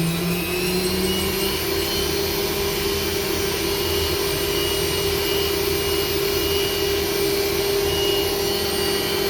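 Haas VF-2SS machining center's spindle stepping up to its top speed of 12,000 RPM in the first second or so, then running steady with a constant whine.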